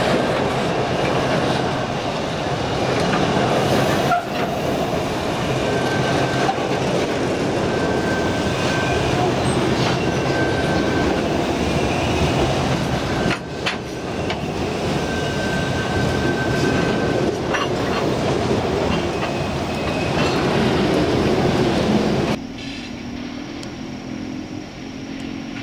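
Freight train wagons rolling past close by, wheels rumbling and clattering over the rails, with short bursts of high-pitched wheel squeal. Near the end the sound cuts to a quieter, steady diesel locomotive engine hum from farther off.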